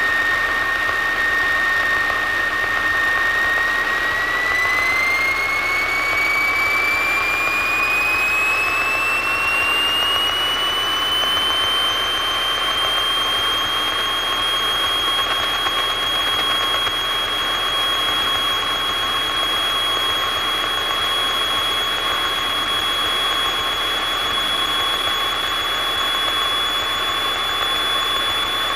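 Single-engine light propeller aircraft's piston engine brought up to takeoff power for the takeoff roll. It makes a steady loud drone with a high whine that climbs in pitch from about four seconds in as the engine speeds up, then holds steady at full power.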